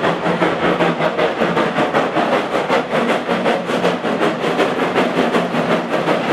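Lambton Tank No.29, an 0-6-2 tank steam locomotive, chuffing hard as it hauls a train of goods wagons. Its exhaust beats come in a rapid, even rhythm.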